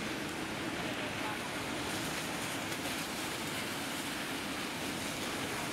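Rain falling steadily, a continuous even hiss.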